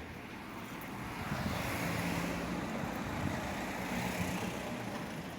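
A car passing by on the street: engine and tyre noise swell over a couple of seconds, then fade away.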